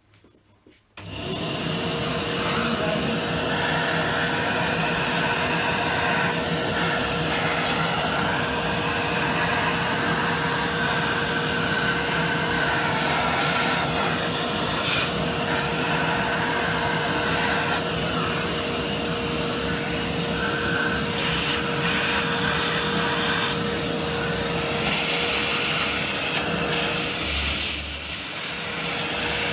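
Vacuum cleaner switched on about a second in and running steadily, with one steady tone over the rushing air, as its nozzle is passed over a freshly CNC-carved pine board to suck up the sawdust.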